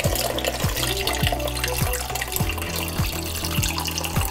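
Katsuo dashi (bonito-flake stock) pouring from a pot through a fine mesh sieve into a glass measuring jug, a steady splashing stream. Background music with a steady beat plays under it.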